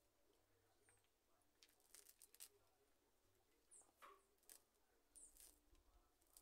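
Near silence with a few faint, scattered rustles and clicks from hands handling a plant pot and potting soil during repotting.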